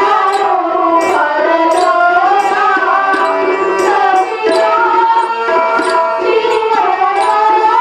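A Kannada stage-play song: a singer's voice bends and holds notes over sustained instrumental accompaniment, with drum strokes throughout.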